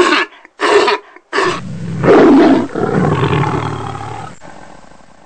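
Lion roaring: two short, loud grunting calls less than a second apart, then one long full roar that peaks about two seconds in and slowly fades away.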